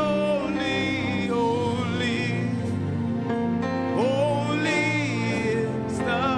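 Slow gospel worship music: sustained chords under a voice singing long, drawn-out notes with vibrato, each entering with an upward glide.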